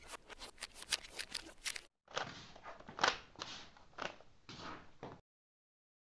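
Rubik's Cube layers being twisted rapidly by hand: a fast run of plastic clicks and clacks. There is a brief break about two seconds in, and the sound cuts off abruptly near the end.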